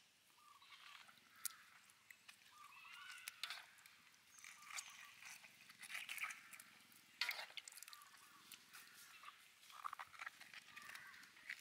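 Faint, sparse handling sounds of wet pickled mustard greens being pulled apart in a metal bowl of water, with a few soft clicks and brief faint chirps.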